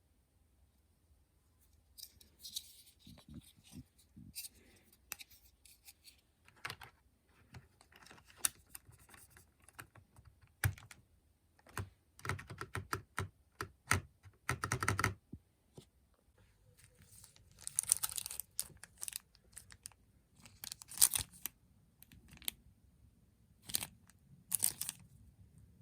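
The spacebar of a brown-switch mechanical keyboard being pressed over and over: irregular clacks that come in a quicker run for a few seconds near the middle. After that come scattered handling noises, louder clicks and rustling, over a faint low hum.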